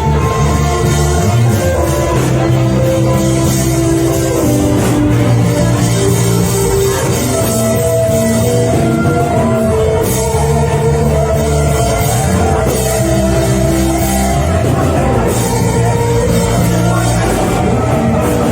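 Live worship band playing a loud, steady instrumental passage, with drum kit and sustained chords.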